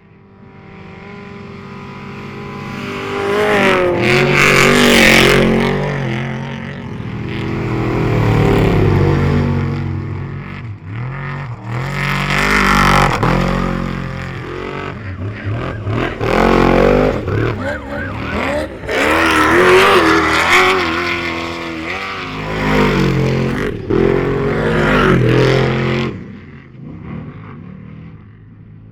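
Off-road race vehicles' engines revving hard as they race past, the pitch climbing and dropping again and again with throttle and gear changes. The sound builds over the first few seconds, swells into a series of loud passes every three to four seconds, and falls off near the end.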